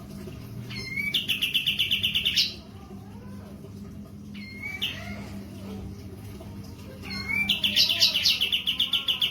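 Kapas tembak bulbul singing in two long trills of fast, evenly repeated high notes, each opening with a short upward swoop: one about a second in and one near the end, with a brief call in between.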